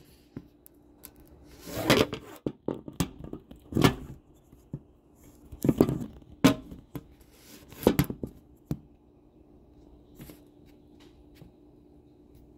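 Kitchen handling noises: a string of knocks, scrapes and rustles over the first eight seconds or so, as things are moved about and the phone is shifted beside the pan. After that only a faint steady hum remains.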